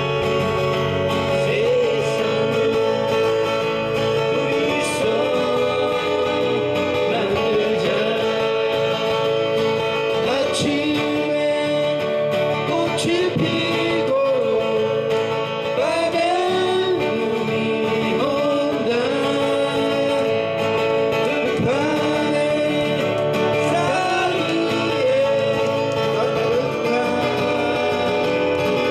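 Two acoustic guitars strummed and picked while a man sings a Korean ballad into a microphone.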